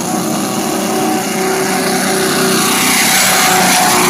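Turbocharged drag car's engine held at high revs during a burnout, a steady high-pitched note over a dense hiss that builds slightly after the first second.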